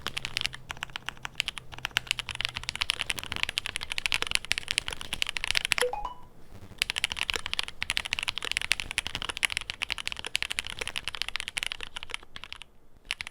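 Fast continuous typing on a QK100 custom mechanical keyboard with lubed Cherry MX Black linear switches in an FR4 plate, soldered to the PCB, giving a rapid stream of key clacks. The typing pauses briefly about six seconds in and again near the end.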